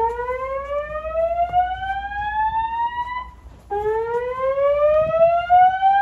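Wheelock ceiling speaker strobes sounding the slow-whoop evacuation tone from a Notifier voice-evacuation panel. Two rising sweeps, each lasting about three and a half seconds, the second starting a little past halfway through.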